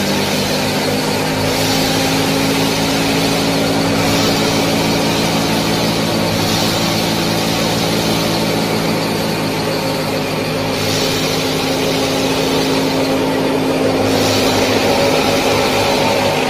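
Small motors of a miniature model tractor and thresher machine running steadily: a continuous droning hum with a rushing hiss that swells and fades every few seconds.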